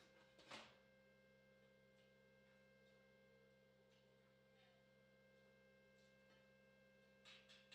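Near silence: a faint, steady hum of several tones, with a soft brief rustle about half a second in and a few faint clicks near the end.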